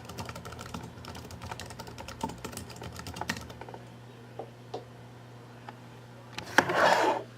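Typing on a computer keyboard to enter the teams into a randomizer: a quick run of key clicks for about three and a half seconds, then a few scattered taps. A brief, louder burst of noise comes near the end, over a steady low hum.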